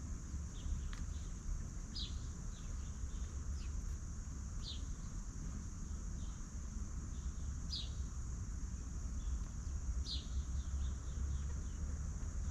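A bird calling again and again, a short high descending note every two to three seconds, each followed by a few fainter ones, over a steady high insect buzz and a constant low rumble.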